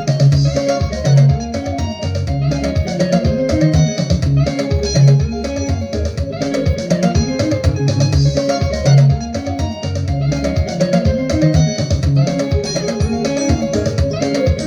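Instrumental gospel music with a busy plucked guitar line over bass and a steady drum beat.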